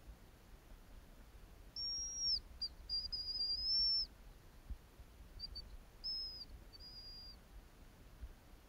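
Thin, high hazel grouse whistles: a long held note, then a run of notes, then a few shorter ones, each dropping slightly in pitch at its end.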